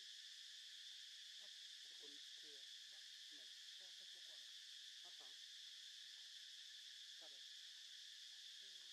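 Faint steady insect chorus, a constant high-pitched buzz that does not let up.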